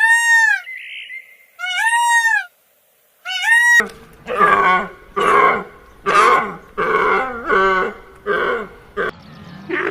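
Animal calls: three high, arching calls, each rising and then falling in pitch, followed by a run of about seven shorter, rougher calls at a little over one a second.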